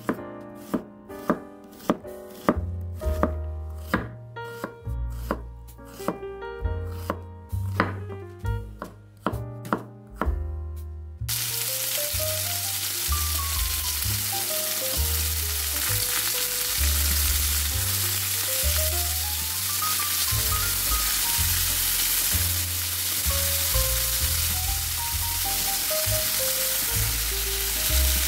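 A chef's knife slicing an onion on a wooden cutting board, about two crisp chops a second. About eleven seconds in this gives way abruptly to a steady sizzle of chicken tenders frying in oil in a pan. Soft background music plays throughout.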